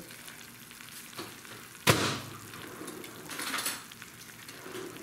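A single sharp clack about two seconds in, over a steady hiss, with lighter handling noise a little later: kitchen handling sounds.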